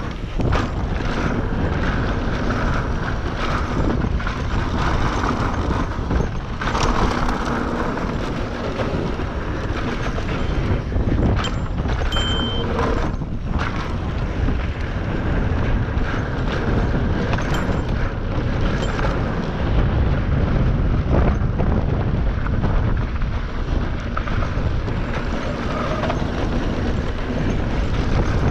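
Wind rushing over the microphone and the tyre rumble of a mountain bike riding down a rocky downhill trail, with scattered knocks and rattles from the bike.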